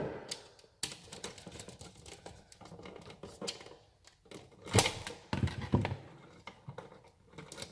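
Irregular small clicks, scrapes and rustles of hand work as white neutral wires are fastened to the silver terminal screws of a GFCI receptacle. The loudest clicks come a little under five seconds in and again near six seconds.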